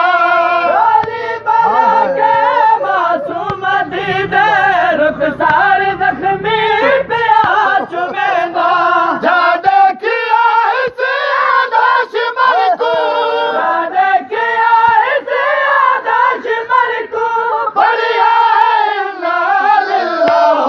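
Voices chanting a Punjabi Shia noha lament together, with repeated sharp slaps of matam chest-beating keeping time.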